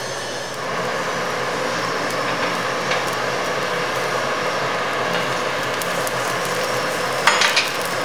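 Coal forge fire blazing under a forced air blast: a steady rushing noise with a faint whine, growing louder about half a second in. A quick cluster of sharp cracks sounds near the end.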